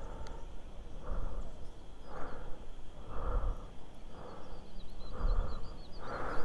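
Breathing, one soft breath about every second.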